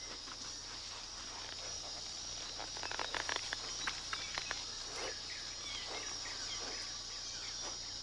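Rainforest ambience: a steady high insect drone with a few faint bird chirps, and the scratchy rustling and scraping of a tree kangaroo clambering over a stump and leaf litter, busiest from about two and a half to four and a half seconds in.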